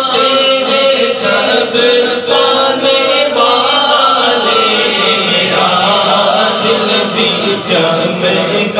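Men's voices chanting a naat, Islamic devotional poetry, into microphones in long, drawn-out melodic lines.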